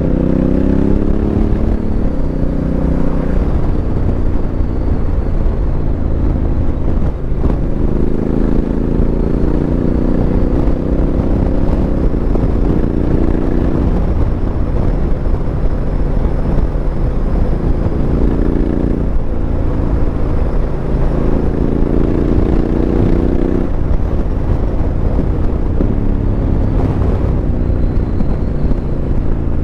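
Honda CRF1100L Africa Twin's parallel-twin engine through a Fuel aftermarket exhaust, accelerating on the move: the engine note climbs in pitch several times and drops back at each gear change. Wind noise on the helmet microphone runs underneath.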